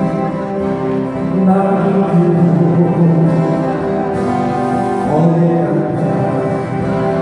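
A live acoustic guitar band playing a slow song: several strummed acoustic guitars under a singer holding long notes, with one sliding note about five seconds in.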